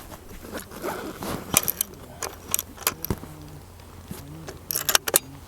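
Short clicks, scrapes and small metallic rattles of equipment being handled, in two clusters: one about a second and a half in and one near the end.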